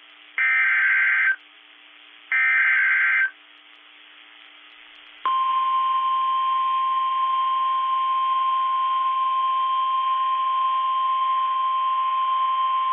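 Emergency Alert System SAME header: two buzzy one-second bursts of digital data about a second apart, the last of the three bursts that open a new weather alert. About two seconds later the NOAA Weather Radio 1050 Hz warning alarm tone starts and holds one steady pitch, signalling that a warning message follows.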